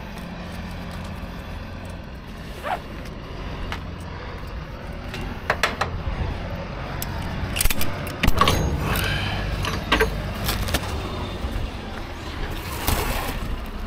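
Metal clinks and clanks of ratchet tie-down straps being handled and their hooks taken off a curtain-sider trailer's side rail, coming in several short clusters over a steady low rumble.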